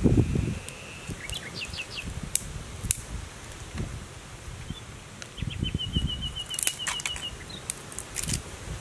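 Small birds chirping in short high notes, with a quick run of rapidly repeated notes in the middle. Low rumbles come at the start and again around six seconds in, and a few sharp snaps come from twigs being handled at the wood fire.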